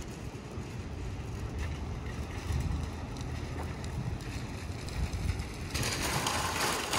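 Wind buffeting the microphone with a low rumble. Just before six seconds a wire shopping cart starts rattling as it is pushed over asphalt.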